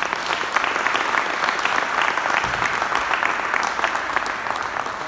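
Audience applauding: many hands clapping densely and evenly, beginning to thin out near the end.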